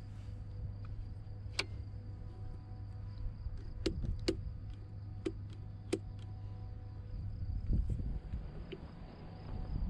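Sharp clicks and knocks from an iScooter i9 electric scooter being handled, its kickstand and stem moved: five clicks spread over the first six seconds, then low knocking and rustling near the end, over a steady low hum.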